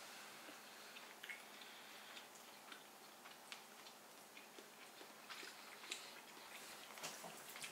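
Faint eating sounds: scattered light clicks of metal forks against ceramic plates, with quiet chewing.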